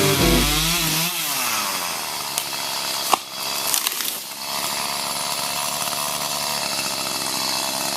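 Echo chainsaw revving up and down, then running steadily at high speed, with one sharp knock about three seconds in. Guitar music fades out in the first second.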